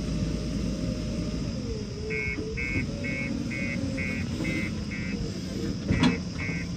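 JCB backhoe loader's engine running, with a whining tone that dips and rises. From about two seconds in, a reversing alarm beeps about twice a second, and a sharp knock comes near the end.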